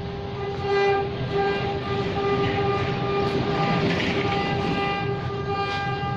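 Sawmill machinery running with a steady, even whine over a rumbling hum, swelling slightly about four seconds in.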